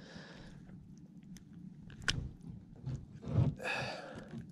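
Faint close handling noises as a small largemouth bass is unhooked by hand: light clicks, a sharper click about two seconds in, a dull knock and a short rustle near the end.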